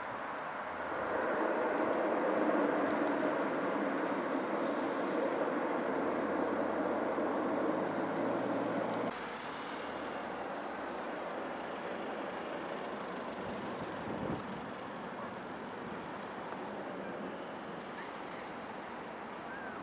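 ATR twin-turboprop airliner running on the runway: a loud steady engine and propeller noise with a low drone, swelling about a second in and cutting off abruptly about nine seconds in. Then a quieter steady jet rumble from a Boeing 737 on final approach.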